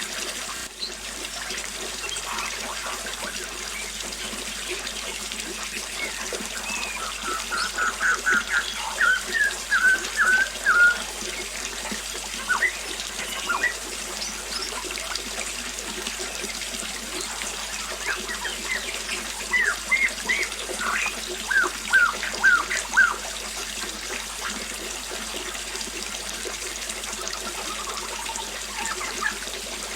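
Small waterfall splashing in a steady rush, with birds chirping over it in two runs of quick repeated notes, about eight seconds in and again about twenty seconds in.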